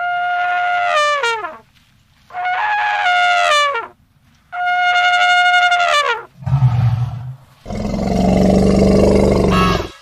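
Elephant trumpeting three times, each call held on one pitch and then sliding down at its end. A deep, low roar follows in the last few seconds.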